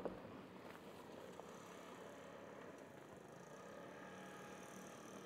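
Faint, distant Porsche Cayenne Turbo twin-turbo V8 driving on a dirt track, a low steady engine drone under a haze of tyre and gravel noise.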